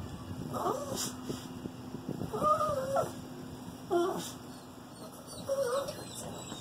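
Two worked-up Chihuahuas vocalising at each other: four short, whiny calls that bend in pitch, the longest about two seconds in.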